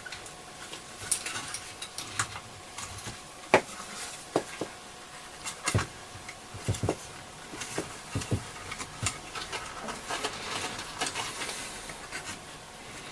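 Irregular small clicks, taps and scrapes of parts being handled and pressed into place on a small plastic transistor radio case. The sharpest knocks come about a third and halfway through, with a run of taps soon after.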